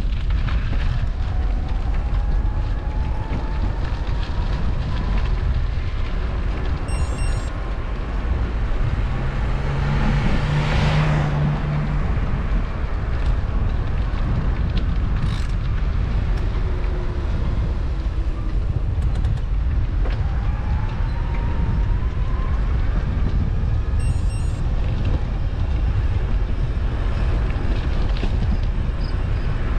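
Steady road rumble and wind noise while riding along a road, with faint rising whines twice. Another vehicle passes with a brief low hum about ten seconds in.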